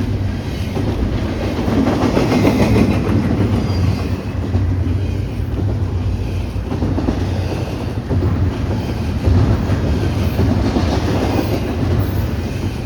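Long BNSF freight train's cars rolling past, a steady loud noise of wheels on rail with no horn.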